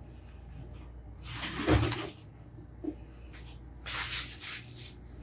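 A dull knock with a scrape about a second and a half in, then scuffing footsteps on a hard deck around four seconds in, over a low steady room hum.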